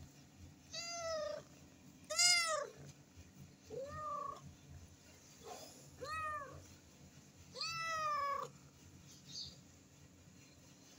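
Tabby cat meowing repeatedly: about five clear meows a second or two apart, each rising then falling in pitch, the loudest about two seconds in, with a couple of fainter ones between.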